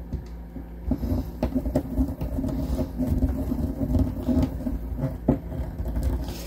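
Power drill/driver running in uneven bursts as it drives a screw through a cabinet hinge into the door's soft wood, its motor tone rising and falling with a few clicks.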